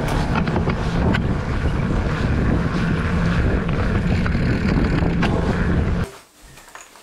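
Wind buffeting the microphone of a handlebar-mounted camera on a moving mountain bike, with knobby-tyre road noise and scattered clicks and rattles. It cuts off suddenly about six seconds in, leaving quiet room tone.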